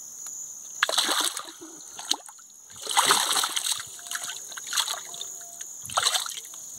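Shallow water splashing and sloshing in the bottom of a wooden canoe as a large thorny catfish (Megalodoras uranoscopus) is handled in it. The splashes come in several irregular bursts, the loudest about three seconds in.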